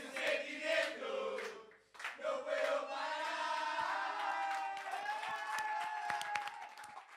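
Concert crowd chanting together in unison, with sharp clicks scattered through it. The chant breaks off briefly about two seconds in, then goes on in long, drawn-out notes that fade near the end.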